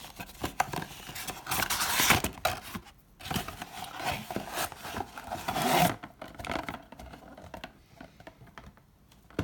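A trading-card box being opened by hand: rubbing, scraping and tearing of its wrapping and cardboard, busiest for the first six seconds, then lighter rustling.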